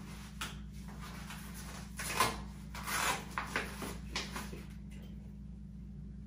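Blood pressure cuff being wrapped around a man's upper arm: a few short rustling, scraping handling noises from about two seconds in, over a steady low hum.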